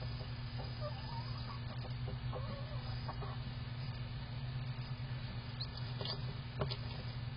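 Soft, wavering clucks of a broody hen over a steady low hum, with a few faint clicks near the end.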